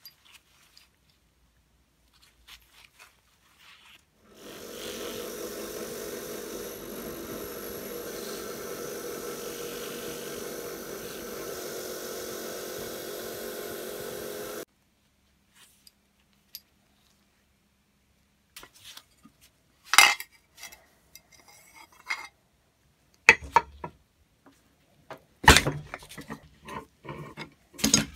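A bench drill press running steadily with a buffing wheel for about ten seconds while a metal pump rod is held against the wheel and polished; it stops suddenly. Later come sharp metallic clinks and knocks from metal pump parts being handled.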